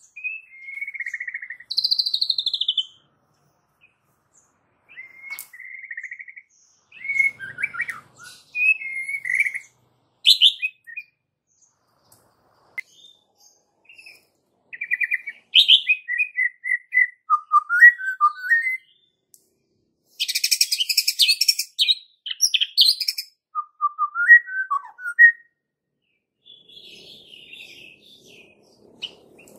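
White-rumped shama singing: short phrases of clear whistled notes and quick chirps with pauses between them, and a loud, harsh rattling burst about two-thirds of the way through.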